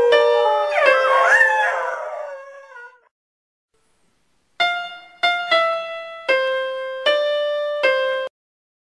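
A dog howls along with piano notes, its howl sliding up and down before fading out about three seconds in. After a short silence, a keyboard plays six single notes that stop abruptly near the end.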